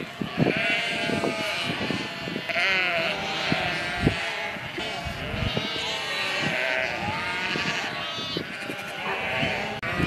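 A large flock of sheep bleating, many calls overlapping without a pause. A few low thumps come through, the loudest about four seconds in.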